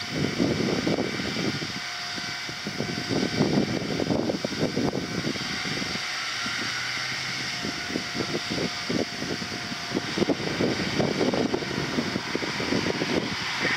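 Strong wind buffeting the microphone in irregular gusts, over the steady hum of a regional railcar standing at the station platform.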